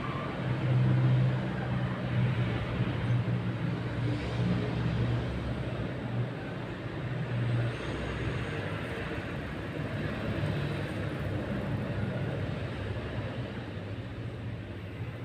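Background noise with a steady low hum, a little louder about a second in.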